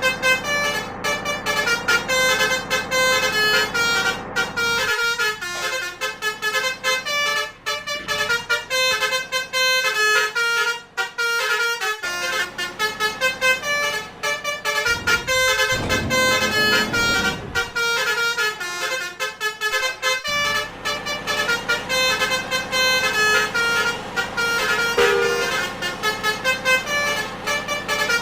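Indonesian 'telolet' basuri trumpet bus horns playing quick melodic tunes, note after note, often several horns at once. A lower rushing sound swells for about three seconds past the middle.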